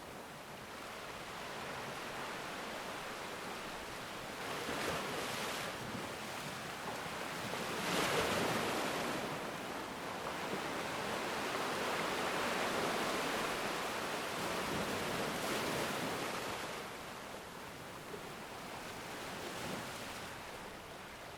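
Sea waves and surf washing in, swelling and easing several times, loudest about eight seconds in.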